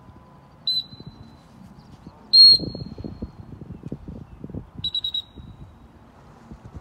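Dog-training whistle blown three times: a short blast, a louder longer blast, then a quick triple toot. These are the standard single-blast stop and multi-toot come-in signals to a retriever working in the water. A lower scuffling noise follows the loudest blast.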